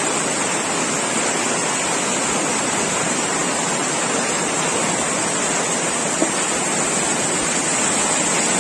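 Floodwater rushing down a street in a fast, churning flow: a steady, loud rush of water, with one brief click about six seconds in.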